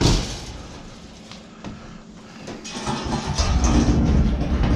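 Old metal box spring and bed frame being handled: a loud knock as it is set down or struck, then a long rough rumbling scrape as the heavy frame is dragged, starting about three seconds in.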